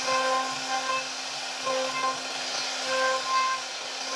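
CNC router carving hardwood: the spindle runs with a steady hum and a cutting hiss, while short whining tones of one pitch come and go several times as the carving head moves.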